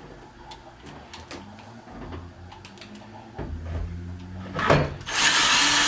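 Soft clicks and handling of small furniture fittings, then about five seconds in a power driver runs loudly at a steady speed, driving a cam-lock fitting.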